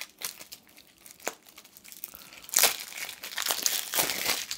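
Clear plastic shrink-wrap crinkling as it is pulled off a deck of cards, in scattered crackles at first, then louder, dense crinkling from a little past halfway.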